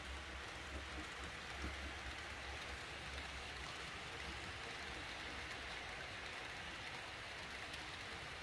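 A long train of H0-scale Roco ore hopper cars rolling along model railway track: a steady rushing clatter of many small wheels on the rails, with a low hum underneath.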